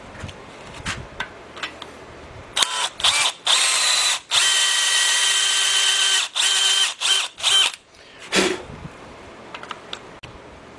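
Electric drill driving a Time-Sert (Big-Sert) countersink cutter into an oversized bolt hole in a Willys L-head engine's cast-iron block. The drill runs in several short bursts, then one steady run of about two seconds, then more short bursts, and stops about eight seconds in.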